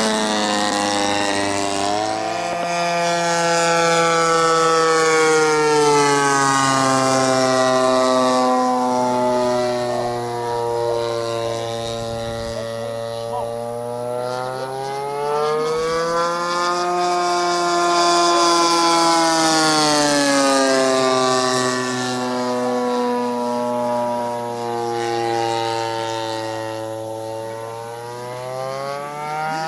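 Engine of a Giant Stik radio-controlled model airplane running in flight, its pitch rising and falling slowly several times as it changes speed and passes by.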